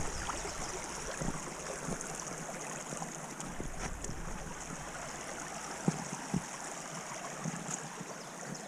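Steady rushing hiss of a stream flowing, with a few footfalls on the trail.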